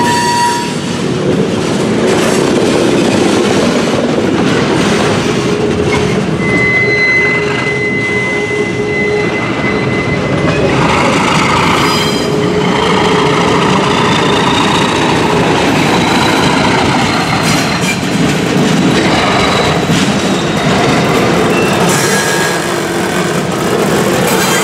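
Freight cars rolling slowly past on jointed track, wheels clattering, with steel wheel flanges squealing against the rail: one held squeal about a third of the way through, then a higher, fainter one that runs for several seconds.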